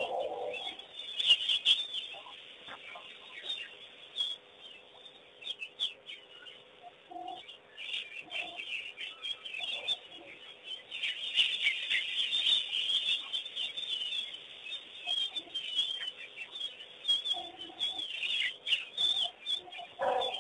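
Wild birds chirping and twittering in a busy, overlapping chorus, thickest about halfway through, with a few lower calls and scattered short clicks among them.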